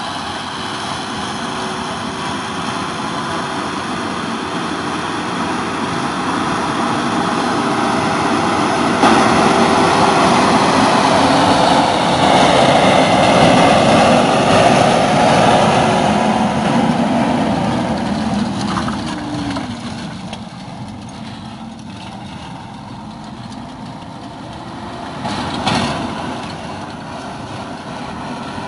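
LIAZ ŠT 180 forestry skidder's diesel engine running. It works harder and louder through the middle, then the engine note falls away and picks up again near the end, with a short clank about three quarters in.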